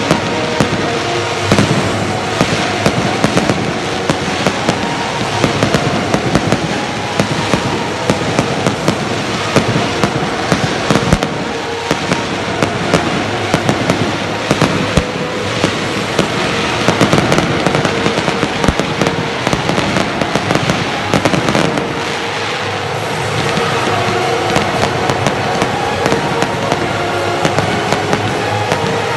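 Fireworks display going off without pause: a dense stream of sharp cracks and bangs over a continuous crackling hiss.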